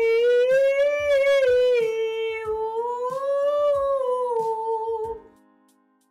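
A woman's voice singing an 'm, mi, ou' vocal warm-up phrase on one breath, first on a bright 'mi' vowel and then on a rounder 'ou' about two and a half seconds in, the melody rising and falling, over plucked accompaniment chords. The phrase ends about five seconds in and is followed by a short near-silent pause.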